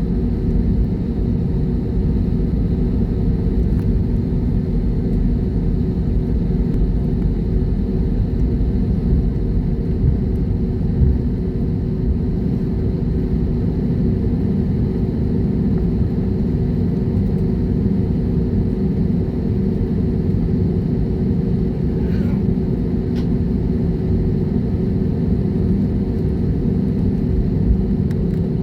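Jet airliner's engines and airflow heard as a steady low rumble, with a few faint steady hums and no change in pitch.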